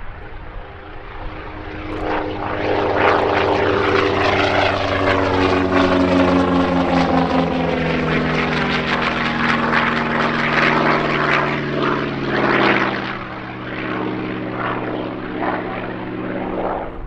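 Piston-engined propeller aircraft flying past, its engine note swelling, dropping in pitch as it goes by, then easing off.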